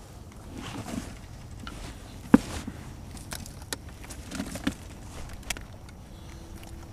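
Handling noises from a collapsible mesh fish basket with a wire-ring frame being lifted and folded: rustling mesh and a series of clicks and knocks, the sharpest a little over two seconds in.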